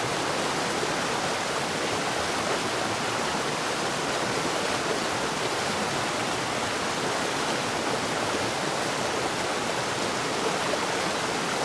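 Steady rain: an even, unbroken hiss with no thunder.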